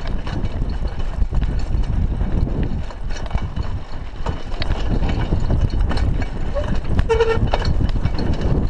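Raleigh Ascent mountain bike ridden over a rough, sandy, stony dirt road: a steady low rumble of tyre and wind noise, with frequent rattles and knocks. A short pitched cry sounds about seven seconds in.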